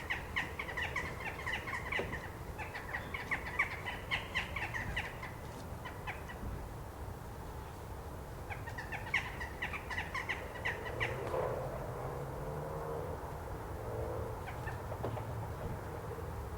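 A flock of jackdaws calling at their night roost: many short, sharp calls overlapping in two bouts, the second dying away about ten seconds in. A steady low rumble runs underneath, with a low drone in the last few seconds.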